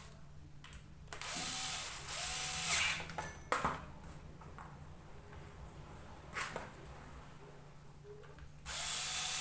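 Electric drill or power screwdriver whirring in three short bursts, the motor speeding up and slowing down, with a few sharp clicks between the bursts.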